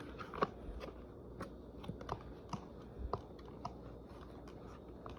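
Faint, irregular clicks and taps from handling the dust canister and filter of a Bissell PowerForce Compact Turbo upright vacuum as it is taken apart.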